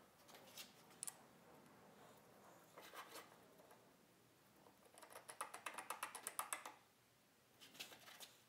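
Faint handling of a plywood sleeve on a wooden arm and a plastic star knob being threaded in to lock it: scattered light clicks and scrapes, with a quick run of ticks about five seconds in.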